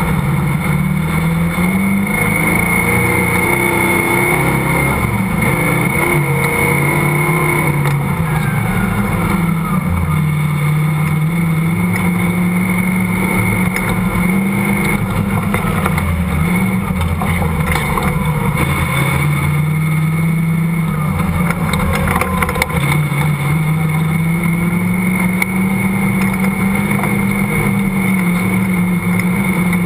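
Off-road vehicle's engine running under load while driving across sand dunes, its pitch rising and falling slowly as the throttle changes.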